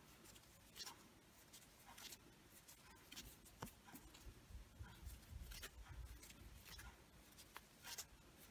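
Faint, irregular scratches and ticks, roughly one a second, of a crochet hook pulling yarn through single crochet stitches.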